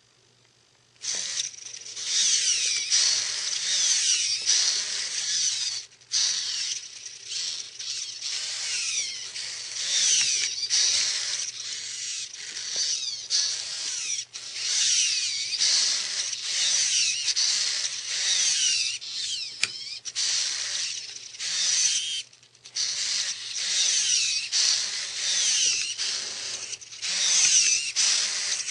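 Five Parallax hobby servos whirring as they pull the fingers of an animatronic hand, starting abruptly about a second in, with a high whine that keeps sliding up and down in pitch as the servos turn and stop, and a few brief pauses.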